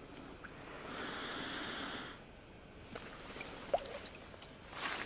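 A brief rustle, then water sloshing and splashing near the end as a large common carp is slipped back into the water by hand after capture.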